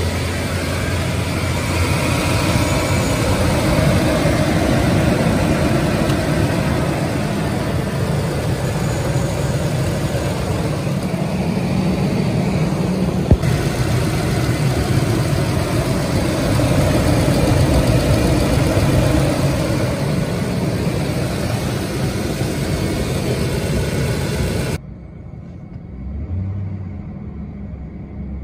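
Ford 5.4-litre V8 idling steadily with the newly replaced alternator fitted, heard close up in the open engine bay. Near the end it drops suddenly to a much quieter, muffled idle heard from inside the cab.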